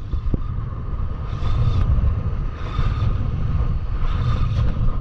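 Steady rumble of wind on the microphone and surf on the beach, with a spinning fishing reel being cranked in and giving a faint steady whine.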